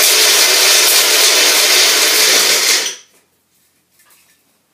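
Bullet-style personal blender with a cross blade grinding chunks of biochar into powder, a loud steady whir that cuts off abruptly about three seconds in. Faint handling sounds follow as the cup comes off the base.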